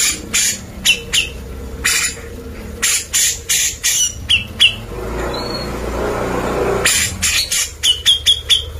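Grey-cheeked bulbul (cucak jenggot) calling in a rapid series of sharp, harsh clipped notes, some with short whistled slurs in quick pairs. A longer harsh, noisy stretch comes in the middle.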